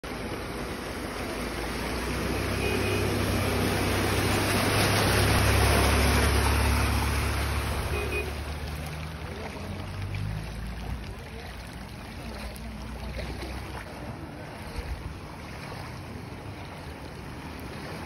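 Floodwater flowing across a road makes a steady rushing hiss. A low rumble swells under it, loudest about five seconds in, then dies away, leaving the rush of water alone.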